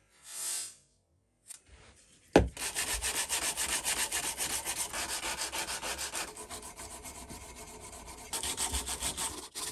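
Sandpaper being rubbed by hand on a metal surface of a Mitutoyo height gauge part, in quick back-and-forth strokes of about five a second. A short soft scrape comes first, and a sharp knock about two and a half seconds in, when the scrubbing begins.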